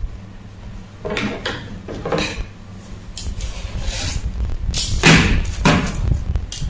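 Fabric rustling with a series of irregular knocks and scrapes as scissors and pins are handled on a wooden table; the loudest comes about five seconds in. A steady low hum runs underneath.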